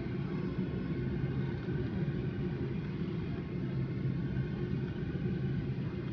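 Steady low rumble of cabin noise inside a Boeing 747-8 as it taxis slowly onto its stand with its engines at idle.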